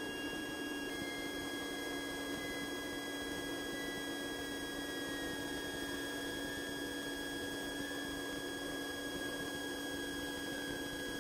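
Cessna 150's four-cylinder Continental O-200 engine and propeller droning steadily in flight, heard as an even cabin drone with thin, steady whining tones over it.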